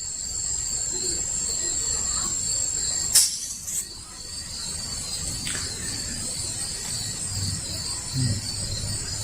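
Steady high-pitched insect chirring over a low rumble, with one sharp click about three seconds in.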